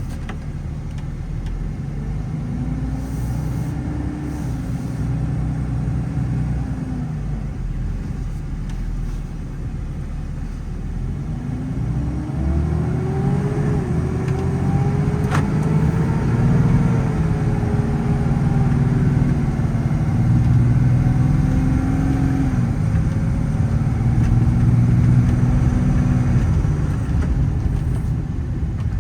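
6.7 L Cummins turbo-diesel of a Ram 5500 working under load, its pitch climbing and easing off in two long sweeps, the second with small steps in pitch as the truck accelerates and slows.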